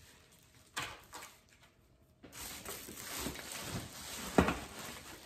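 Faint handling of meal-kit packaging: a couple of light clicks, then from about two seconds in a rustle of the box's insulated foil liner and plastic packs, with one sharp tap near the end.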